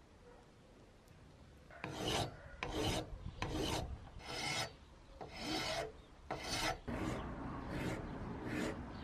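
A flat metal file rasped back and forth across a knife's bronze and walnut handle clamped in a vise. About ten even strokes, a little more than one a second, start about two seconds in.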